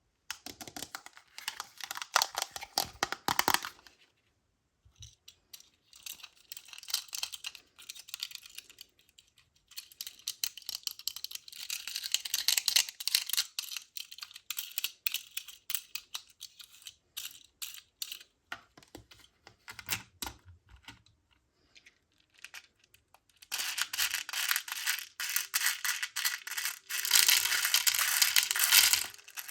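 Small shiny beads clicking and clattering against one another as they are handled and poured, in bursts with short pauses, busiest and loudest near the end.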